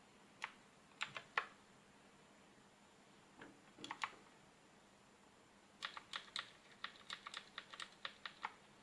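Keys of a Modecom Volcano Lanparty Pro mechanical keyboard with Kailh switches being pressed: a few scattered keystrokes, then a quick run of about fifteen keystrokes near the end.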